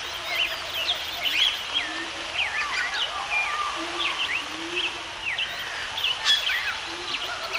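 Several birds singing at once, a busy mix of quick high chirps and whistled sweeps, with a few short low notes underneath and a steady background hiss.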